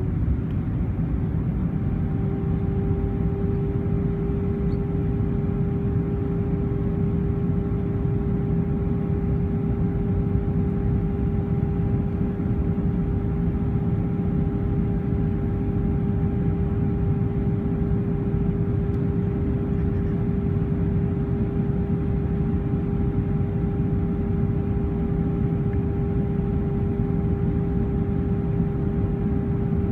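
Airbus A320 cabin noise on descent: a steady low rumble of engines and airflow with a held engine tone, which rises slightly about two seconds in.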